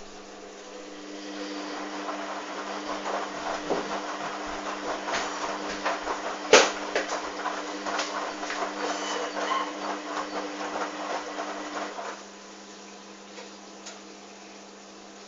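Hoover Dynamic washing machine's drum turning under its motor, with a whirring tone and the rustle and clatter of laundry tumbling. It stops about 12 seconds in. There is one sharp knock midway, and a low steady hum throughout.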